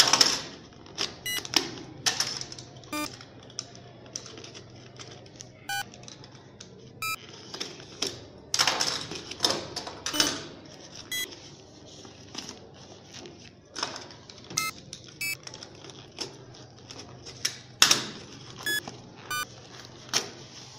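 Hands opening a cardboard shipping box: irregular clicks, scrapes and rustling of cardboard and packing tape, with longer tearing noises around eight to ten seconds in and again near the end.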